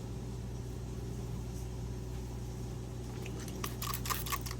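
Steady low electrical hum, with a short run of light clicks and rustles about three and a half seconds in.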